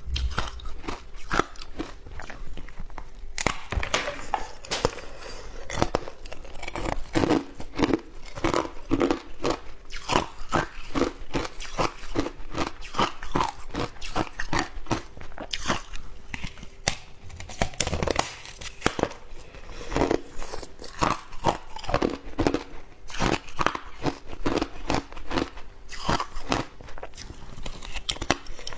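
Shaved ice being bitten and chewed close to the microphone: a dense, irregular run of crisp crunches.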